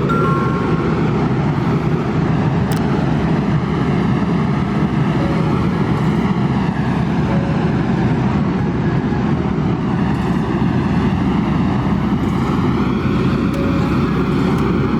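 Kobelco SK200 excavator running steadily while working, its diesel engine and hydraulics making a continuous drone with a faint whine that slowly rises and falls.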